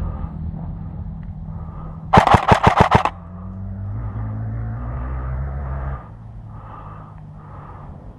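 Airsoft gun firing a short full-auto burst of about nine rapid shots in one second, about two seconds in. Underneath is a steady low rumble that drops away about six seconds in.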